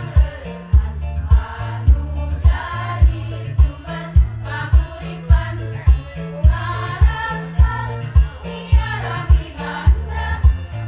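Women's choir singing in parts over an accompaniment with a bass line and a steady thudding beat, a little under two beats a second.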